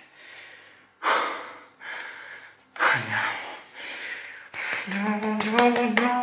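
A man's loud, heavy gasping breaths, several separate noisy gasps, then a drawn-out moaning cry from about five seconds in: an overwhelmed, emotional reaction.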